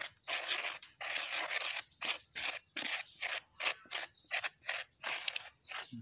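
A thin stick scraping and pressing through a pile of damp sawdust mix on a flat sheet, in short irregular strokes about two or three a second, one of them drawn out about a second in.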